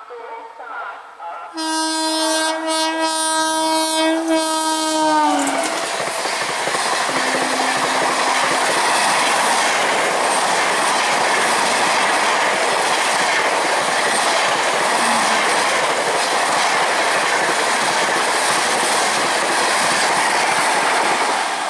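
Indian Railways express train at high speed sounding one long horn blast of about four seconds, its pitch dropping as it passes. The horn gives way to the steady rush and wheel clatter of the coaches going by close to the track.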